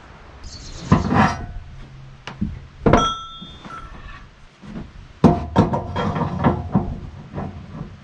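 Handling noises around a portable bandsaw mill: a string of knocks, scrapes and steps on the mill's steel track and on wooden boards. About three seconds in there is one short metallic clank that rings briefly.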